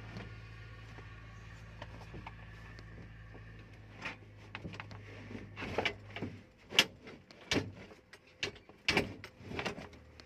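A run of sharp knocks and clatters through the second half, over a low steady hum that stops about six and a half seconds in.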